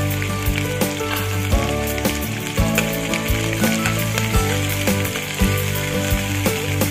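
Onion, garlic and small pieces of shellfish sizzling in hot oil in a nonstick pan, stirred with a metal spoon that clicks and scrapes now and then. Background music with changing notes plays over it.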